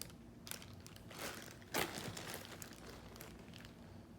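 Miniature packaging crinkling and rustling as packed figures are handled and pulled from a crammed box. There are several short crackles, the loudest a sharp one a little under two seconds in.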